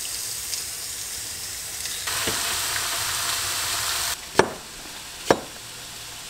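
Seasoned crappie and trout fillets sizzling in a frying pan, the sizzle louder for a couple of seconds in the middle. Near the end, over a quieter hiss, two sharp knife chops on a cutting board.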